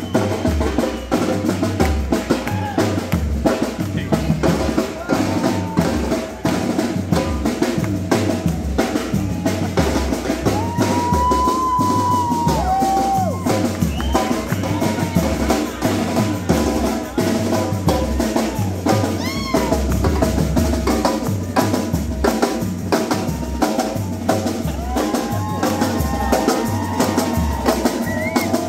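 A marching drumline of snare drums and bass drums playing a fast, driving groove, with dense snare strokes over steady bass-drum beats.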